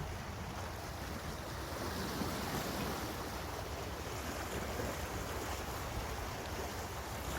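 Steady wash of sea waves at a rocky shore, with wind rumbling low on the microphone.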